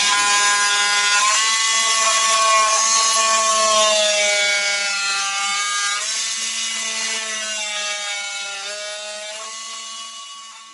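Background pop music: held synth chords with no beat, shifting every second or two and fading out toward the end.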